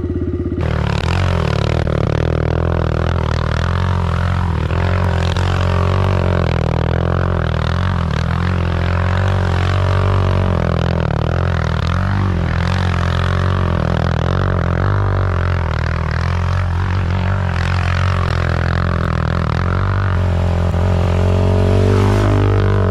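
Background music with a deep, droning bass line.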